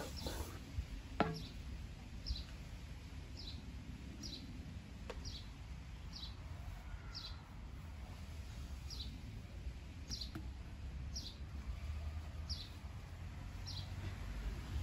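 A bird chirping a short, high, falling note over and over, about once a second, over a low steady rumble. A few faint knocks are also heard.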